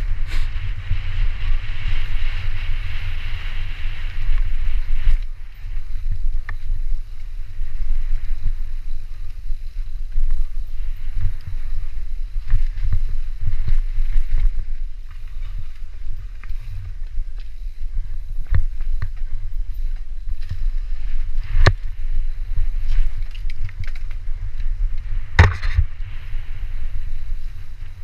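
Wind buffeting the microphone of a camera on a mountain bike running fast down a leaf-covered dirt trail, with a steady low rumble and the clatter and knocks of the bike over bumps. Two sharp knocks stand out near the end.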